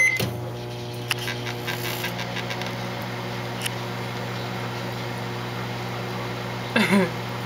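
Microwave oven starting with a short beep, then running with a steady low hum; a few light clicks come in the first couple of seconds.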